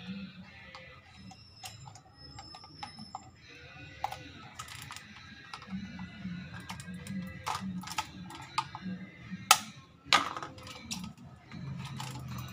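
Screwdriver prying at the plastic housing of a Toyota Vios fuel pump module to release the main fuel filter: scattered plastic clicks and knocks, the loudest two coming about nine and a half and ten seconds in.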